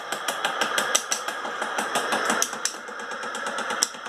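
Rapid, irregular clicking and ticking of plastic as the top cover of an old Vank spin dryer is fitted over its spinner basket. The clicks thin out past the middle.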